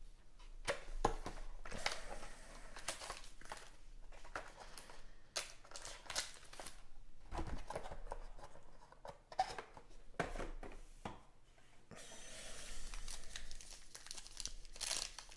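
Cardboard trading-card box being opened and handled: a string of short rustles, scrapes and clicks as the lid flap is lifted and the box turned over. From about twelve seconds in, a steadier crinkling and tearing comes from the foil card pack taken out of the box.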